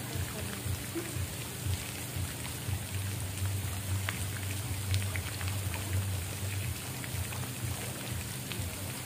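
Steady patter of falling water, with scattered small drips and a low rumble underneath.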